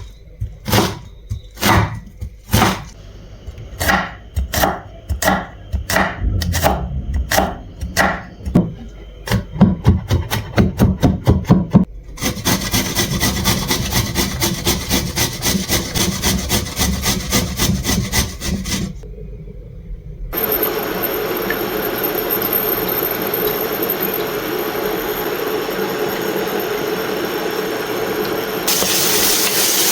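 A knife chopping on a wooden cutting board in regular strokes, speeding up into fast chopping. About twelve seconds in, the chopping gives way to a steady hiss, with a short break near twenty seconds.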